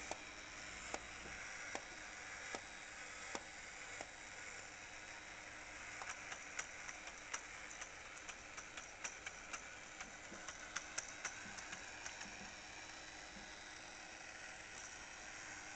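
1962 Charley Weaver Bartender battery-operated tin toy running, its mechanism giving a faint steady noise with sharp clicks about once a second. From about six seconds in to about twelve, the clicks come quicker, several a second, as the figure shakes its cocktail shaker.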